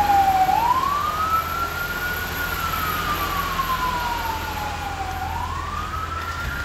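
Fire engine siren wailing in a slow rise and fall. It sweeps quickly up, then slides slowly down over about three seconds, twice, over a steady low rumble.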